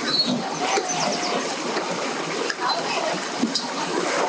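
Busy boat-ramp ambience: overlapping distant voices over a steady wash of water and background motor noise.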